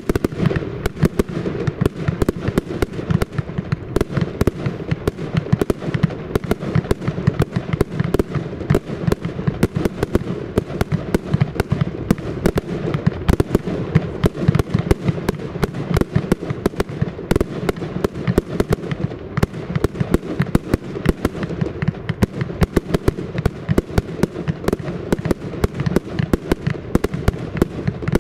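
Blackboxx "Fallout" firework battery firing: a rapid, unbroken string of shots and bangs, several a second, over a low rumble.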